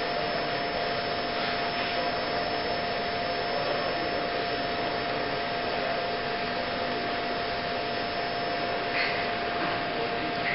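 Electric welding arc from a Fronius inverter welder burning steadily, an even hiss with a steady tone through it and a few faint crackles near the end. This is the smooth 'singing' an arc gives once the current is turned up far enough.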